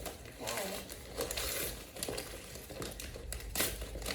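Gift wrapping being handled and pulled open, crinkling and rustling in several short bursts as a present is unwrapped.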